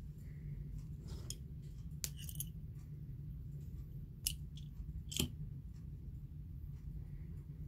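A few short, faint clicks and taps, the clearest about four and five seconds in, over a low steady rumble: handling noise from a phone carried through a dark room.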